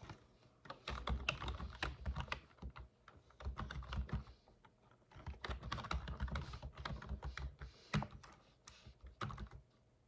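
Typing on a computer keyboard: three runs of quick keystrokes with short pauses between them.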